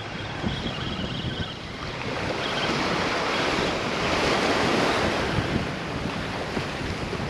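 Small surf waves breaking and washing up the beach, with wind buffeting the microphone. The wash swells about two seconds in and eases off after about five seconds.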